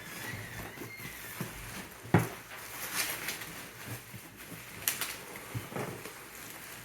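Bubble wrap being pulled and unrolled off a packed model airplane: plastic rustling with scattered crackles, and a sharp knock about two seconds in.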